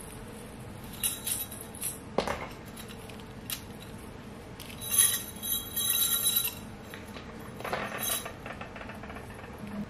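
Metal bangles and jewellery clinking and jingling as they are put on, in several short clusters, the loudest about five seconds in.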